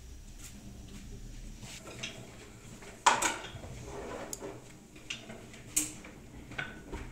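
Kitchen clatter: metal utensils knocking against steel pots and pans, with one loud clank about three seconds in, followed by a brief rattle, and a few lighter knocks after it.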